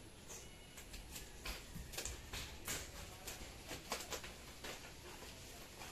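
Bubble-wrap packaging being cut open with scissors and handled: irregular crinkles, crackles and snips of plastic.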